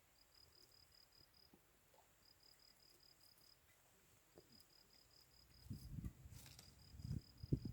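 Faint insects chirping in repeated high-pitched pulsed phrases, each lasting about a second with short pauses between, over a faint steady high hum. From about five and a half seconds in, louder low knocks and rustles come in, with one sharp snap.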